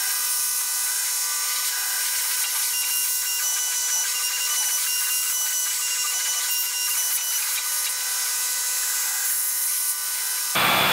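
Creality Falcon 2 laser engraver running a cutting job on foam: a steady high hiss with thin whines that step up and down in pitch as the head moves. Near the end it cuts off abruptly into a louder, fuller sound.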